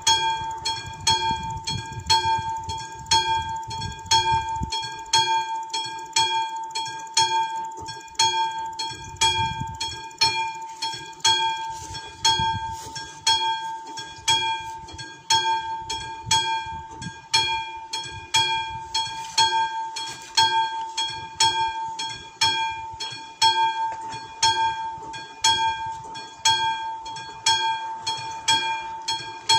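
Level-crossing warning bell (the classic bell of an AŽD 71 crossing signal) ringing continuously with rapid, even strokes while the red warning lights flash, warning that a train is due.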